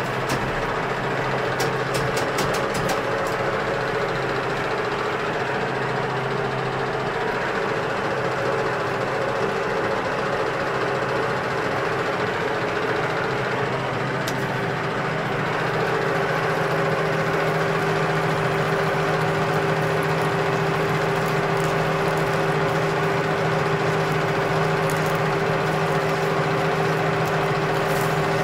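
Metal lathe running steadily with a constant geared hum, a few sharp ticks about two seconds in. About halfway through the hum shifts in pitch and gets slightly louder.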